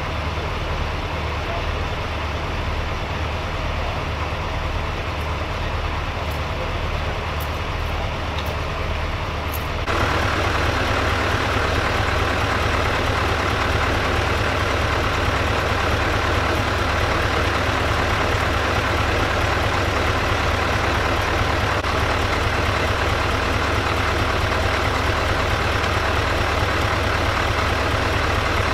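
Fire engine's heavy diesel engine idling steadily, with a sudden step up in level about ten seconds in.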